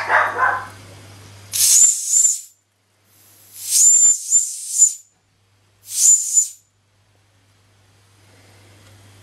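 Steam whistle on a Fleischmann 105-1 toy steam engine's boiler blown three times by hand, each a short hissing blast of steam with a high whistle tone, the last one the shortest. A brief rattle comes just before, and a faint hiss of steam builds near the end.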